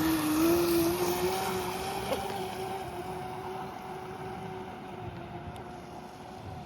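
Electric RC boat's brushless motor (Proboat Black Jack 26 on 3S) whining on a pass, a steady tone that rises a little in pitch in the first second or so and then slowly fades. Wind noise on the microphone underneath.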